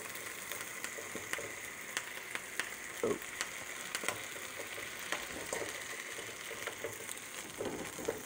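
Shrimp sizzling in hot oil in a wok on high heat, with scattered pops and the clicks and scrapes of a metal utensil turning them.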